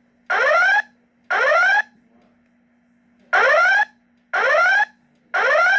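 Wheelock E7025 red speaker/strobe sounding the EVAX 50 evacuation tone: short rising sweeps of about half a second each, in groups of three with a longer pause between groups. This is the temporal-3 evacuation pattern played between the recorded voice messages. A faint steady hum runs underneath.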